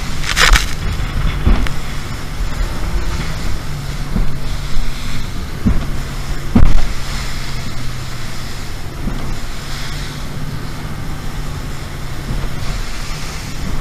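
Mercury SeaPro 250 V8 outboard running steadily, pushing a rigid inflatable boat through rough sea. Wind buffets the microphone and water rushes past. Several sudden loud thumps and splashes come as the hull slams into waves, the loudest about six and a half seconds in.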